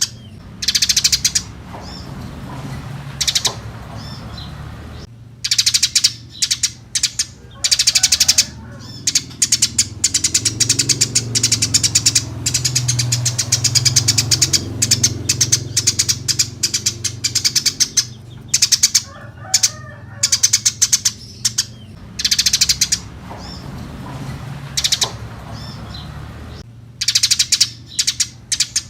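Eurasian tree sparrows chattering in repeated bouts of rapid high chirps, some short and some running several seconds, with brief pauses between, over a low steady hum.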